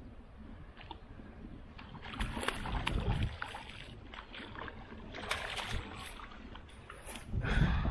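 Koi carp shot with a bowfishing arrow splashing and thrashing at the water's surface in several bursts as the line is hauled in, with a loud low rumble near the end.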